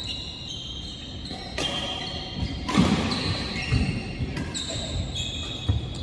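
Badminton rackets striking a shuttlecock back and forth in a doubles rally: about six sharp hits at uneven spacing, the loudest about three seconds in, several followed by a short high ringing.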